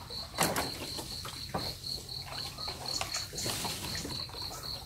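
An insect chirping steadily in a high, evenly pulsed note, about four pulses a second. A sharp knock about half a second in and a few softer clicks come over it.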